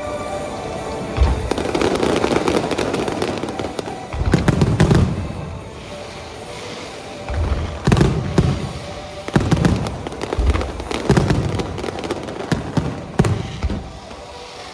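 Aerial fireworks bursting overhead: a run of deep booms a second or two apart, with crackling between them, over background music.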